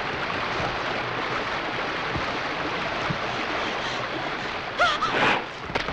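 Steady rushing of a mountain stream. About five seconds in, a voice shouts out briefly, its pitch sliding up and down.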